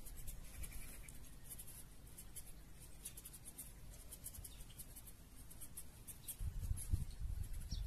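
A knife cutting ingredients: quick, irregular, light scratchy ticks. A low rumble comes in about six and a half seconds in.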